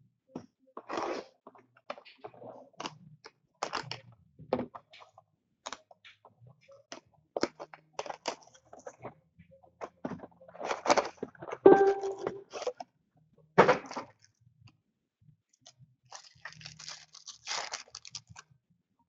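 Trading card packs and boxes being handled and torn open: an irregular run of clicks, thunks and crinkling, tearing wrapper sounds, busiest past the middle.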